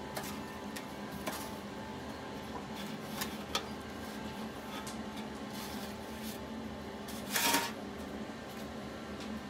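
Light clicks and taps of raw chicken drumsticks being slotted onto a stainless steel wire drumstick rack and handled in a metal pan, with a short, louder scrape about seven and a half seconds in, over a steady low hum.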